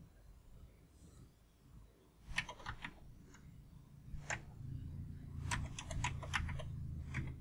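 Computer keyboard keystrokes: a quick run of four keys, a single key about a second later, then a faster run of about six keys as a username and password are typed. A low steady hum sits under the second half.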